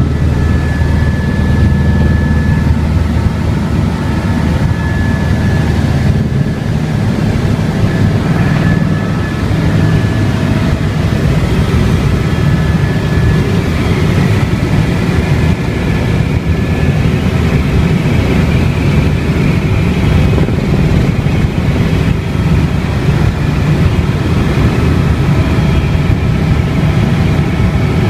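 Helicopter running steadily: a loud low drone of engine and rotor with a faint steady high whine over it.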